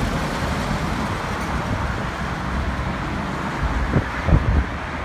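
Road traffic running alongside: a steady rumble of cars and trucks passing on the adjacent road. Two short low thumps come about four seconds in.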